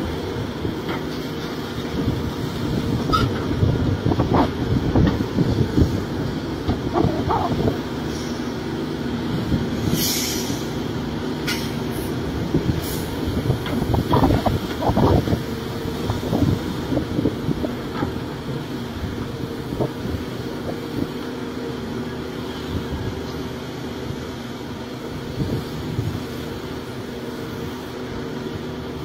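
Caterpillar 336 hydraulic excavator's diesel engine running under load as it digs and swings. Irregular clanks and thuds come as dirt and rock drop into a steel dump-truck bed, with a few sharper knocks about ten to thirteen seconds in.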